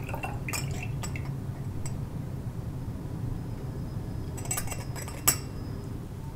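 Light clinks of a glass tumbler and a metal funnel against a glass bottle as water is poured back through the funnel, over a steady low hum. A cluster of sharper clinks comes about four and a half to five seconds in, the loudest as the funnel is lifted off the bottle neck.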